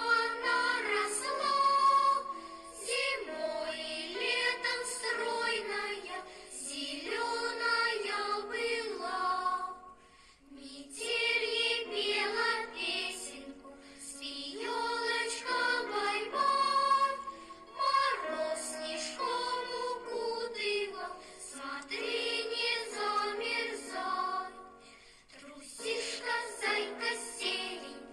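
Background music: a song with a high singing voice, in phrases separated by short pauses.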